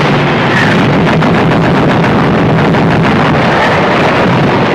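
Shipboard anti-aircraft guns firing rapidly, with many overlapping shots and shell bursts in a dense, unbroken barrage.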